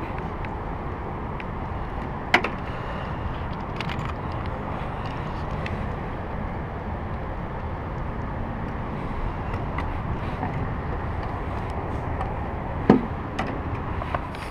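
Two sharp knocks on wooden dock boards, a small one about two seconds in and a louder, heavier one near the end, over a steady low rumble of wind and water.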